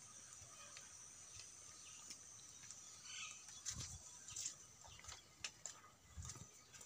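Faint farmyard background with a steady high hiss. From about halfway, irregular footsteps, knocks and rustles are heard as the phone is carried over the ground into a straw-strewn cattle shed.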